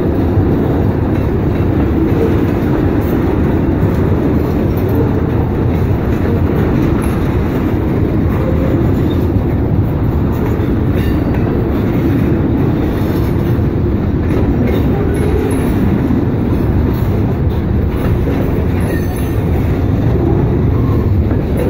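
Freight train cars rolling past over a level crossing: a steady, loud rumble of steel wheels on the rails, unchanged throughout.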